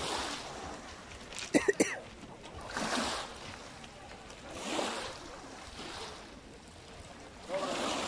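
Small sea waves washing onto a pebble beach, swelling and falling back about every two seconds. About a second and a half in there is a brief cluster of loud, sharp sounds.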